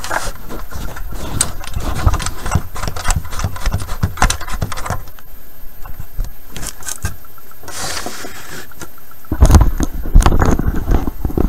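Close handling noise of a cable connector being fitted to the back of a transceiver: clicks and metallic rattling of the plug and cable. Near the end it turns to heavy bumps and rubbing as the camera is picked up and moved.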